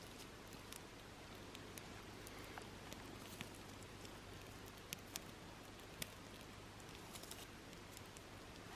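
Quiet outdoor ambience: a steady faint hiss with scattered, irregular small ticks.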